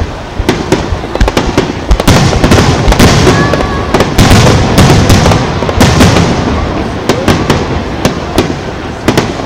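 Aerial fireworks shells bursting: a quick run of sharp bangs and pops, thickening into a dense crackle with rumble from about two to six seconds in, then thinning out toward the end.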